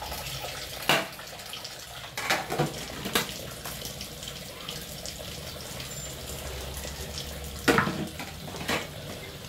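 Tap water running steadily into a sink as dishes are washed by hand, with a few sharp clinks and knocks of plates being handled.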